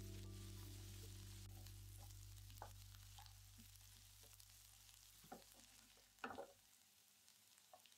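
Sliced onions sizzling faintly in a nonstick pan while a wooden spatula stirs them, scraping and knocking against the pan a few times, loudest about six seconds in. A fading tail of background music dies away over the first several seconds.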